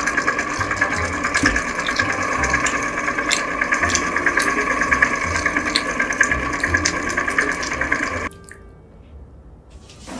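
A chocolate fondue fountain's motor running under load as it churns dry powder instead of melted chocolate: a steady mechanical whir with a gritty crackle and a low throb about twice a second, the machine struggling as if about to die. The sound cuts off abruptly about eight seconds in.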